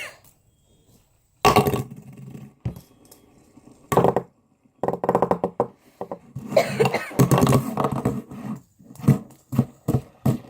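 A person's voice making wordless sounds in about five separate bursts, with short pauses between them.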